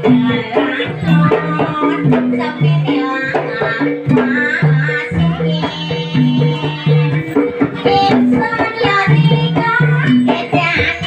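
Jaranan accompaniment music: a Javanese folk ensemble of hand drums and other percussion playing quick, dense strokes over a short repeating figure of low pitched notes. Higher held pitched tones join in during the second half.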